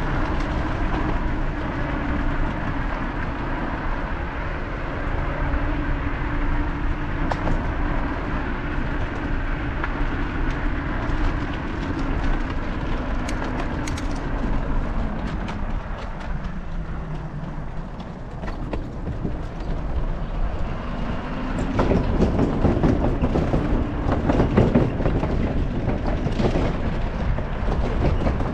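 Riding noise of a bicycle: tyres rolling on pavement, with wind rushing over the microphone. The noise turns rougher and louder for a few seconds near the end.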